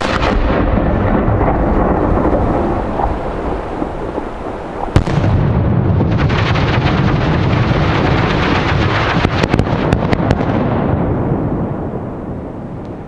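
A 75mm Italian cylinder shell fired from its mortar, followed by a long rush of noise as it climbs. About five seconds in it bursts with one sharp bang, then its serpentelli spinners hiss and buzz for several seconds, with a quick string of sharp cracks from the red flash bangers near the end before the sound fades.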